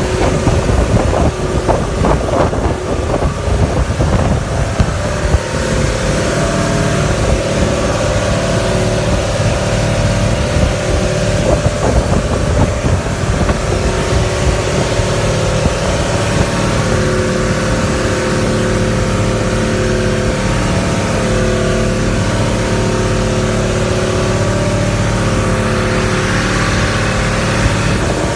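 Outrigger boat's engine running steadily at speed, with the rush of wind and water past the hull. There are a few irregular knocks in the first few seconds.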